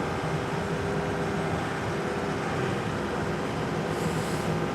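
Diesel engine of a compact loader running steadily as the machine works, with a constant whine over the engine rumble. A brief hiss comes near the end.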